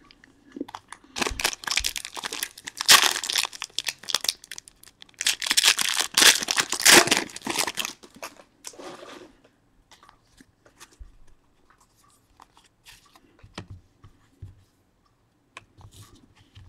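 A trading-card pack being torn open, with several seconds of wrapper crinkling and tearing, then fainter scattered clicks and rustles.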